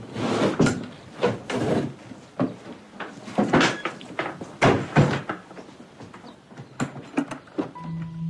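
Cupboard doors and drawers being opened and rummaged through, giving an irregular series of knocks, bumps and scrapes. Soft sustained music tones come in near the end.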